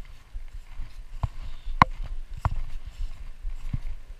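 Footsteps through overgrown weeds, each step a sharp click about every half second, over a low rumble.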